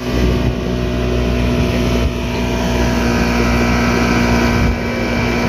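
Small motorboat running at speed: a steady engine drone with water rushing and splashing along the hull.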